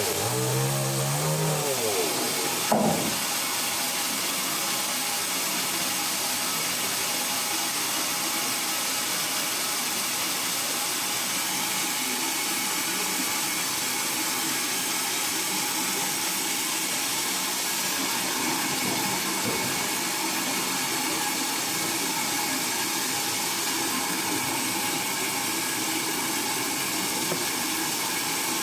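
Sawmill saw machinery running. In the first two seconds a motor's pitch falls, there is a sharp knock just under three seconds in, and after that a steady, even hiss-like cutting noise continues without change.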